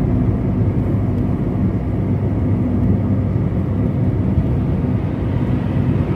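Car driving at highway speed: a steady rumble of engine and tyre road noise heard from inside the cabin.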